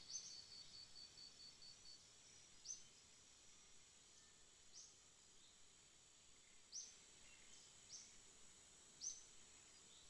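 Faint nature ambience: a rapid, high pulsing trill for the first two seconds, then short high chirps every second or two, over a steady thin hiss.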